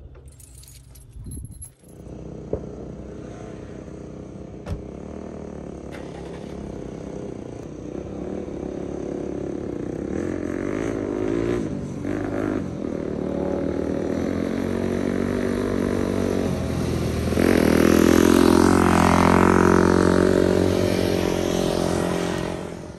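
A vehicle engine running and growing steadily louder, loudest near the end with a shift in pitch, then cut off abruptly.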